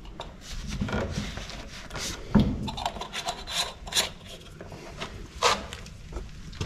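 Irregular scraping and rubbing with a few sharp knocks, from hand work on glued plastic drain-waste-vent pipe.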